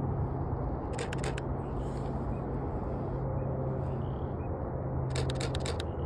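Canon EOS 6D Mark II DSLR shutter fired in two rapid bursts: a short run of clicks about a second in and a longer run near the end, over a steady low background rumble.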